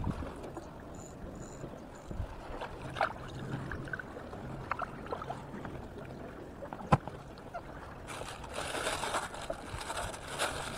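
Sea water lapping and gurgling against concrete breakwater blocks, with scattered small clicks and knocks and one sharp knock about seven seconds in. Near the end a plastic bag rustles as a fish is put into a cooler.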